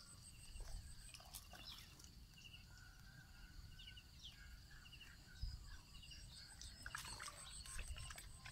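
Near silence with faint, repeated chirping of several small birds over a low rumble.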